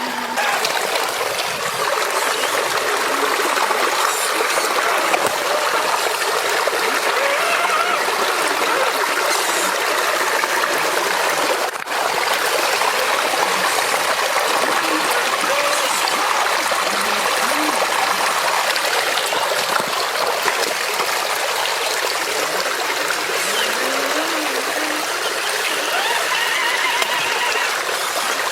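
Shallow river water running and trickling steadily, with one brief break about twelve seconds in.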